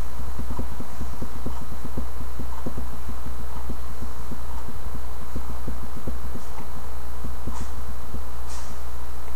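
A loud, steady low hum with many soft, irregular low ticks running through it.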